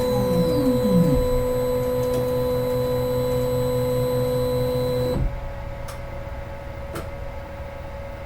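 Medical scanner sound effect, as from an MRI machine: a steady electronic hum, with a pitch sweeping downward in the first second. About five seconds in it cuts off abruptly to a quieter steady hum, with a few faint clicks.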